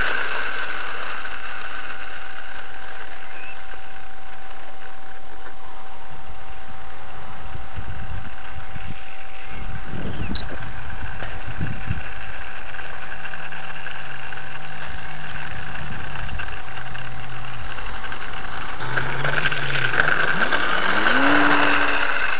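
A motor running steadily under a constant rush of air. In the second half its low tone shifts pitch in steps, then climbs near the end.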